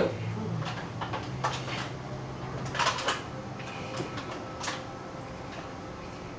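A series of light knocks and clatters, about six or seven spread irregularly, from tomatoes being handled and set down.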